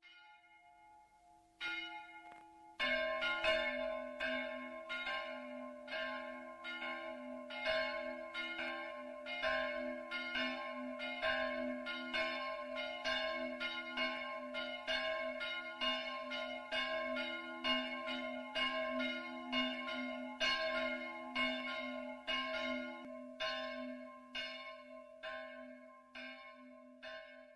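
Church bells pealing, several bells of different pitch swinging together in overlapping strokes, about one and a half a second, rung for the start of the service. The bells join in one after another over the first three seconds, one drops out about 23 seconds in, and the peal fades near the end.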